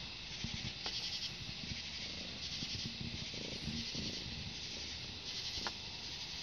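Night insects chirping in short high-pitched bursts a few times over a steady outdoor hiss.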